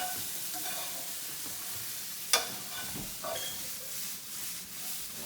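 Sliced mushrooms and green onions sizzling as they sauté in olive oil in a hot pan, being stirred; the utensil knocks sharply against the pan once a little over two seconds in.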